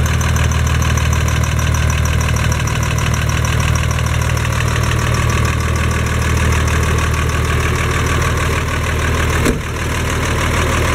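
Eicher-built Massey Ferguson 1102 tractor's diesel engine idling steadily, with a single knock about nine and a half seconds in.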